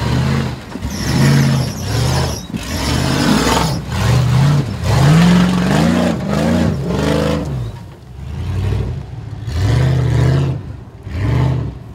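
Off-road 4x4 truck engine revved hard in repeated short bursts, the pitch climbing and falling with each surge of throttle, easing off about two-thirds of the way through before two more revs near the end.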